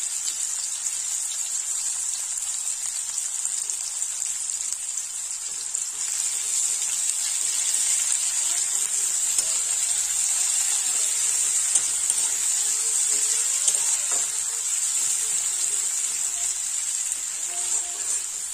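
Sliced onions sizzling in mustard oil in a metal kadai, being stirred with a spatula: a steady frying hiss that grows louder about a third of the way through as the stirring begins, with two brief clicks later on.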